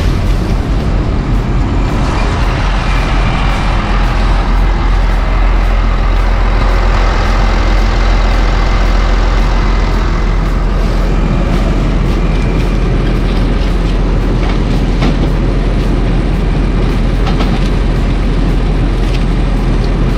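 Combine harvester running steadily during corn harvest, a loud, even machine drone with a strong low hum.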